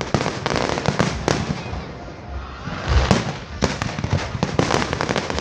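Aerial fireworks going off in quick succession: a dense run of bursts and crackles, with several louder booms about a third of a second in, just over a second in, and around three seconds in.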